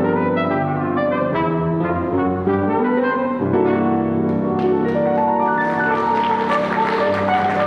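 Small band of brass and piano playing a melody that settles into a long held closing chord about halfway through, while audience applause builds up under it.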